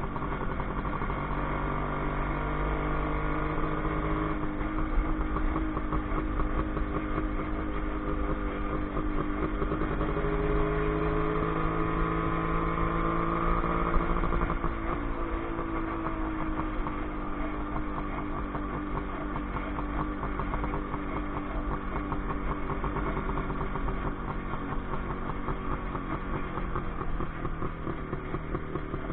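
WSK 125 motorcycle's single-cylinder two-stroke engine running on the move, heard from the rider's seat. Its pitch rises and falls as the throttle opens and eases off, with a clear drop about halfway through.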